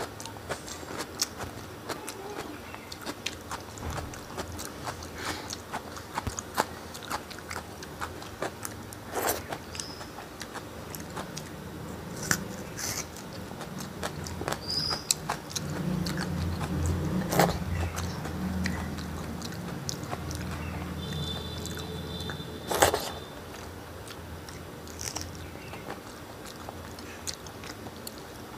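Close-up chewing and biting of rice and fish eaten by hand, with many small wet mouth clicks and a few sharper smacks. A low hum rises in the background for several seconds in the middle.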